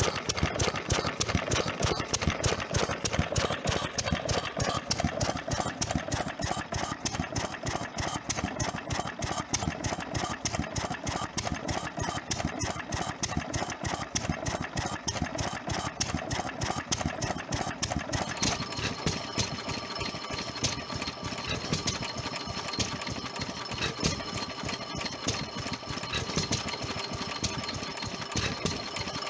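Ruston & Hornsby Class PB 3 hp single-cylinder stationary engine running steadily with a rapid, even beat. About eighteen seconds in, the sound changes to a second small green twin-flywheel stationary engine running.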